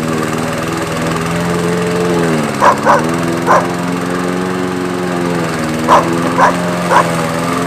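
Briggs & Stratton 190 cc single-cylinder engine of a Craftsman Gold lawn mower running steadily, its pitch sagging briefly and recovering a couple of seconds in. A dog barks six times over it, in two bunches.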